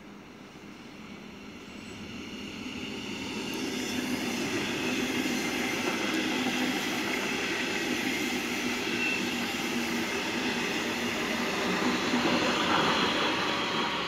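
A double-deck regional train hauled by an electric locomotive passes at speed. The rolling noise of wheels on rail builds over the first four seconds as it approaches, then holds steady as the coaches run by.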